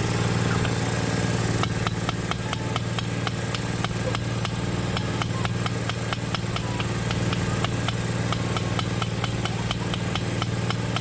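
A motor running steadily, with a fast, even ticking setting in about two seconds in, roughly four ticks a second.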